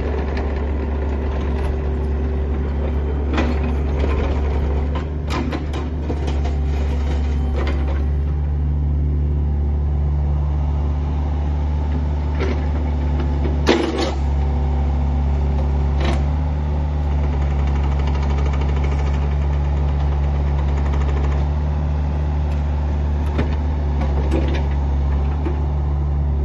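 Mini excavator's diesel engine running steadily while the machine slews and works its boom and arm, with a few sharp clunks from the arm and bucket, the loudest about halfway through.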